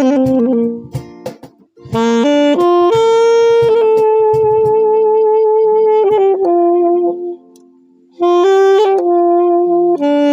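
Saxophone playing a slow melody: a short run of notes, then one long held note, then a lower note and a brief breath pause before the next phrase begins.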